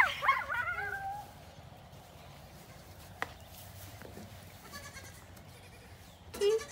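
Pygmy/Nigerian Dwarf mix goat kid bleating: one loud, wavering bleat at the start that trails off after about a second. A single sharp click near the middle, and a shorter call near the end.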